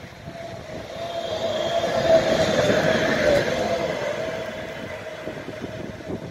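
DB Class 185 electric locomotive (Bombardier TRAXX) running light past at speed, its traction equipment giving a steady whine over the wheel and rail rumble. The sound builds to its loudest about two to three seconds in, drops a little in pitch as the locomotive goes by, and fades as it moves away.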